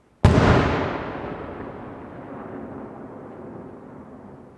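An aerial firework shell bursting with one sharp, loud bang about a quarter second in, followed by a long echoing rumble that slowly fades. Another shell bursts with a bang right at the end.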